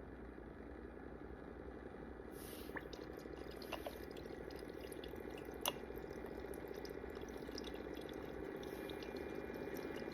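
Hamilton Beach FlexBrew 5-in-1 coffee maker brewing a single serve: a steady trickle of coffee running from the spout into a cup of ice, with a few sharp clicks.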